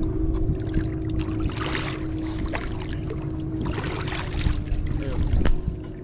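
A large fish splashing and thrashing at the water surface as it is lifted in a drop net, with wind rumbling on the microphone. A steady low hum runs underneath and stops about five and a half seconds in.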